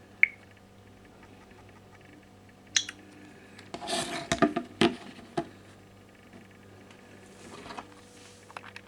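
Handling noise with no ringtone playing: a sharp click just after the start and another about three seconds in, then a cluster of knocks and rubbing about four to five and a half seconds in, and a soft rustle near the end.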